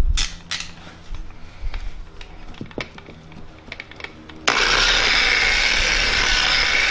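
A few light handling clicks and taps, then about four and a half seconds in, a Porter Cable dual-action polisher switches on and runs steadily with a whirring hiss. It is priming a 3-inch foam pad with finishing polish on the paint.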